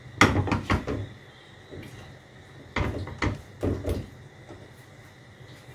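Spatula scraping and knocking against a nonstick frying pan while stirring thick white sauce, in two bursts of quick strokes: one right at the start and one about three seconds in.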